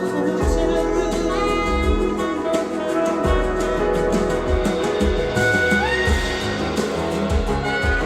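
Recorded music played through Morel Sopran 934 loudspeakers and picked up in the room: an instrumental, jazz-leaning passage with a sustained lead melody over recurring low bass notes.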